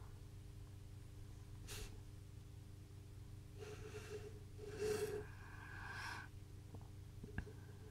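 Faint breathing by a person, with a short sniff about two seconds in and a longer breathy exhale, partly voiced, in the middle, over a steady low hum.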